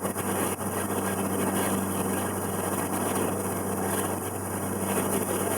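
Engine of a river cruise boat running steadily: a low, even hum under a steady rushing noise.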